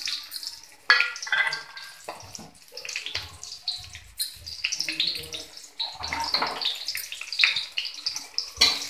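Chopped onions frying in hot oil in a kadhai, sizzling with irregular crackles and spits, just after they were added to the oil.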